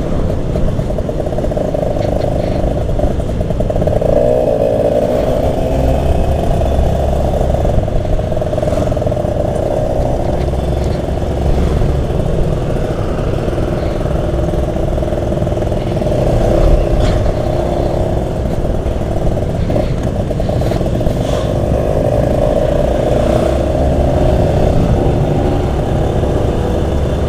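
Motorcycle engine running on the road at riding speed, its pitch wavering a little as the throttle changes, with wind rushing over the microphone.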